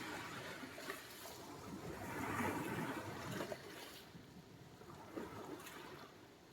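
Small sea waves washing onto the shore, with one surge of surf about two seconds in that then ebbs away.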